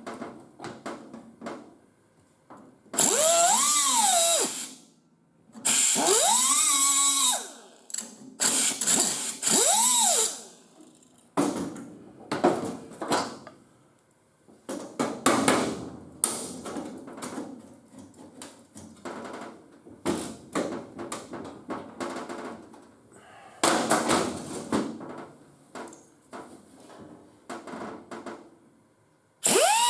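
A power drill run in short bursts of one to two seconds, each spinning up and winding back down, three times in the first ten seconds and again at the very end. In between come scattered clicks, scrapes and tool handling noise.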